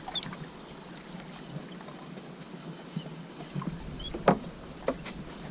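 Small fishing boat adrift, water lapping at the hull, with a few sharp knocks on the boat, the loudest about four seconds in.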